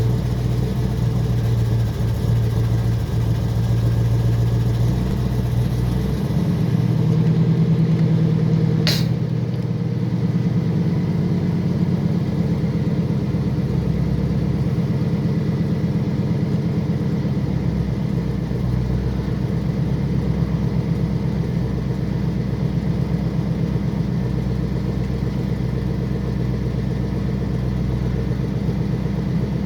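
Small-block Chevy V8 running just after startup, with a metallic noise the owner calls strange; its idle note shifts about six to seven seconds in, then settles. A single sharp click about nine seconds in.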